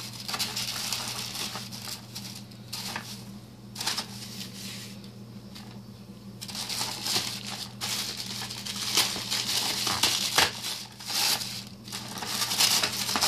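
White tissue paper crinkling and rustling as a ribbon-tied package is unwrapped by hand, with a quieter pause about halfway through before the rustling picks up again.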